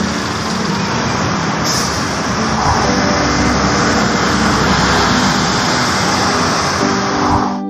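Buses and other traffic passing close by on a busy city avenue: a loud, steady rush of engine and tyre noise.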